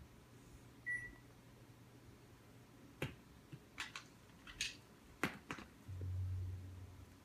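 Faint, scattered clicks and knocks of plastic Lego pieces being handled, half a dozen of them in the middle. A short high beep sounds about a second in, and a low hum rises for about a second near the end.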